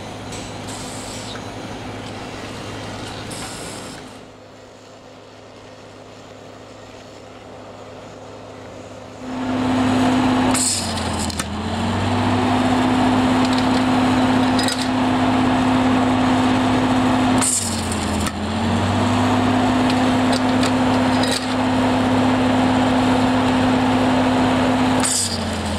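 Stud welds being fired one after another with a stud welding gun. Each weld is a brief sharp crackle of the arc, three in all several seconds apart, over the steady electrical hum of the welding power source. The hum sags in pitch for a moment after each weld and then recovers.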